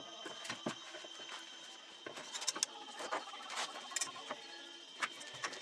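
Scattered light knocks and taps as a plywood panel is handled and marked out with a pencil and a metal square.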